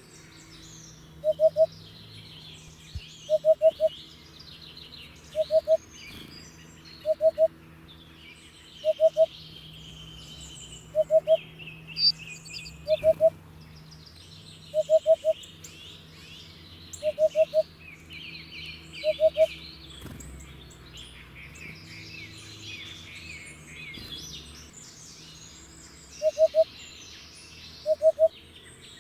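Hoopoe singing, a low hooting phrase of three quick notes repeated about every two seconds, with a pause of about six seconds before it resumes near the end. Other small birds chirp and twitter at a higher pitch throughout.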